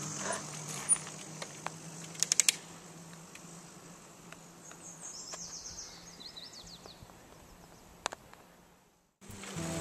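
Quiet outdoor ambience in which a songbird sings a short run of high notes stepping down in pitch, after a brief burst of rapid high ticking. A faint steady low hum lies underneath, and the sound cuts off to silence near the end.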